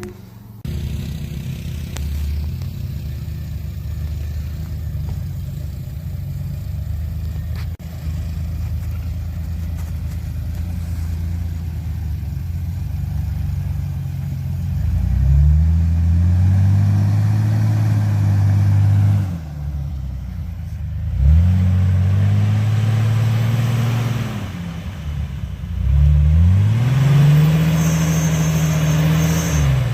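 An off-road 4x4's engine runs steadily at low revs, then is revved hard three times, each rev rising, holding for a few seconds and dropping back.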